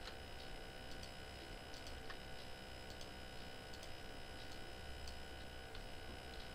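Faint, irregular clicks of a computer mouse and keyboard, about a dozen spread through, over a steady faint electrical hum.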